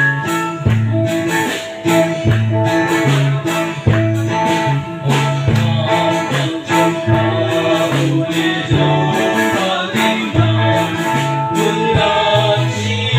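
A small live band playing a song: acoustic and electric guitars over a stepping bass line and a drum kit, with voices singing.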